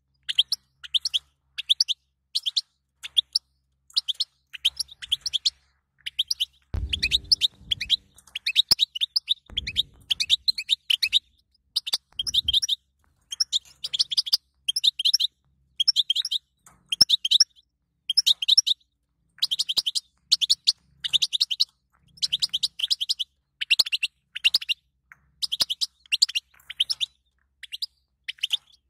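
European goldfinch chattering: short bursts of rapid, high twittering notes, each under a second, broken by brief silences.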